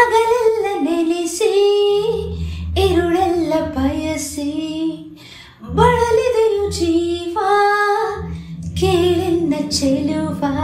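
A solo woman's voice singing a Kannada film melody in long, held phrases with vibrato, pausing briefly for breath twice. A low, steady accompaniment sits underneath the voice.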